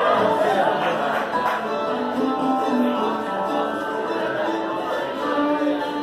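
Old-time string band playing a fiddle tune: bowed fiddles carrying the melody over plucked strings and upright bass.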